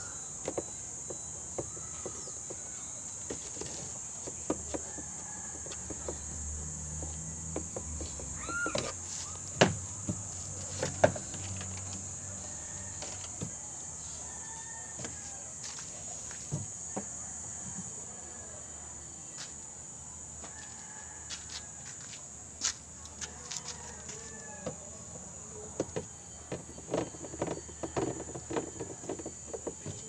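Scattered clicks and knocks of hand tools on a washing machine's upturned plastic base, with two sharper knocks about ten seconds in and a quick run of clicks near the end. Under them runs a steady high-pitched chirring of insects.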